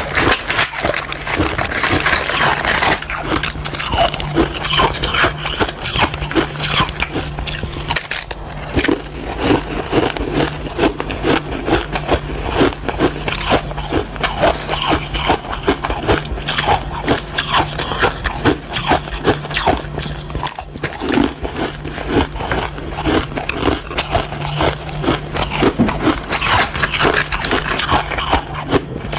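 Frozen crushed ice being bitten and chewed close to the microphone: dense, rapid crunching and crackling, over a steady low hum.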